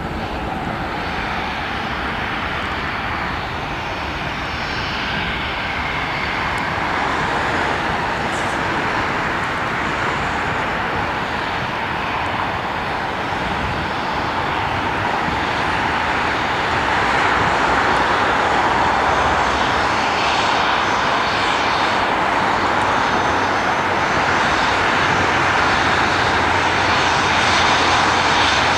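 Rolls-Royce BR710 turbofans of a Bombardier Global Express business jet running steadily as the jet moves on the ground, a continuous jet noise that grows louder a little past halfway.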